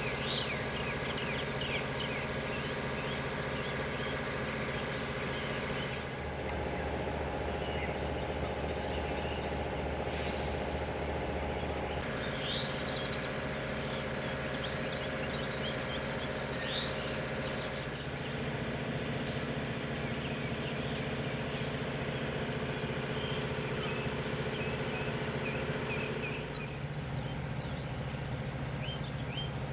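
Steady mechanical hum from an idling machine, its pitch shifting suddenly a few times, with birds chirping throughout.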